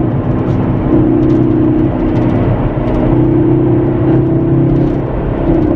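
Hyundai Veloster N's turbocharged 2.0-litre four-cylinder engine and road noise, heard from inside the cabin while driving. The engine note holds a steady pitch, with a few brief dips about two and a half, four and five and a half seconds in.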